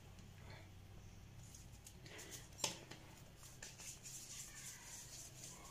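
Faint soft rustling and patting of hands working soft naan dough in flour, pinching off pieces and rolling them into balls, with one sharp tick a little over halfway through.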